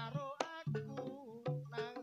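Live Javanese jaranan gamelan music: sharp drum and metal-percussion strikes over low sustained gong-like notes, with a wavering, vibrato-laden melody line above.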